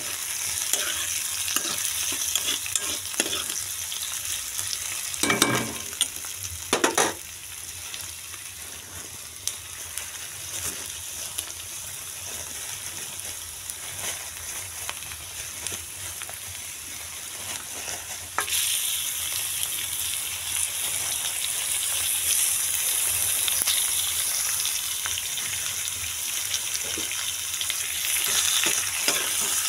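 Sliced onions frying in hot oil in a pan: a steady sizzle with the scrape and knock of stirring. Two louder knocks come about a quarter of the way in, and the sizzle turns suddenly louder about two-thirds through.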